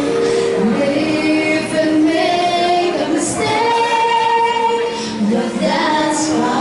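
Children's voices singing a melody together over musical accompaniment, holding long notes.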